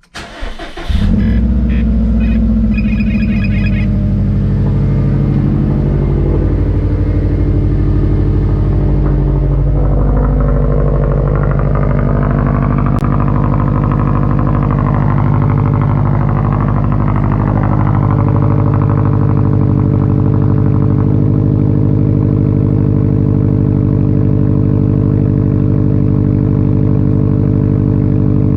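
2013 Subaru WRX STI's turbocharged 2.5-litre flat-four starting after a brief crank, then idling steadily through a loud Tomei Expreme Ti titanium turbo-back exhaust.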